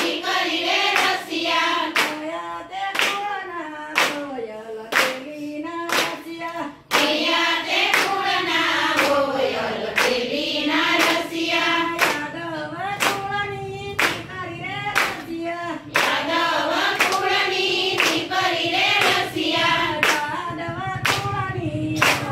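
A group of women singing a Gujarati Krishna bhajan together in unison, keeping time with steady rhythmic hand claps.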